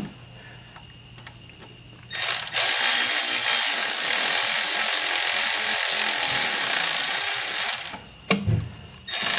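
Small handheld power driver running to tighten a hose clamp on a tractor's hydraulic suction hose. One long steady run begins about two seconds in and stops about two seconds before the end, and a second run starts near the end.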